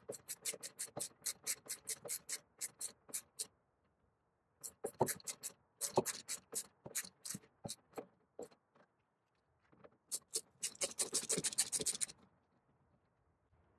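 Ratcheting hand bit driver with a Torx T45 bit clicking rapidly as it is worked back and forth on a tailgate hinge bolt. The clicks come in three runs with short pauses between them.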